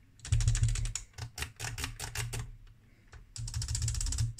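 Rapid electromechanical clattering with a low hum under it, from the 1985 Navitronic PGU-1 path guidance unit under test. It comes in two bursts of about a second each, with separate clicks between them.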